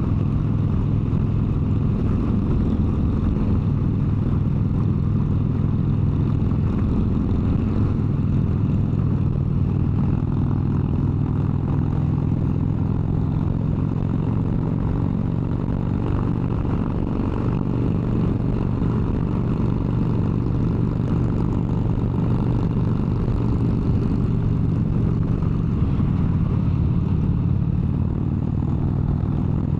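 Harley-Davidson V-twin motorcycle engine running at a steady highway cruise, its pitch holding fairly even, over a steady rush of wind and road noise.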